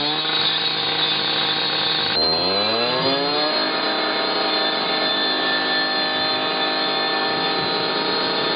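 A power tool's motor revving up, its pitch rising over about a second, about two seconds in, then running steadily at high speed with a high whine.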